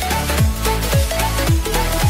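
Background electronic dance music with a kick drum about twice a second, a steady bass line and short synth notes.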